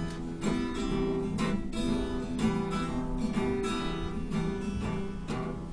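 Acoustic guitar strummed in a steady rhythm, about two strokes a second: the instrumental introduction to a song, before the singing comes in.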